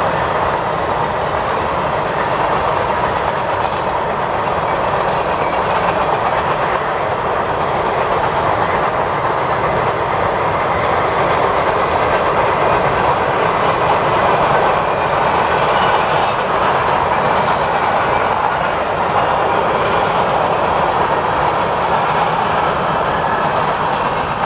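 Covered hopper cars of a Canadian Pacific freight train rolling past on the rails: a steady rolling noise with occasional clicks of the wheels over the rail joints.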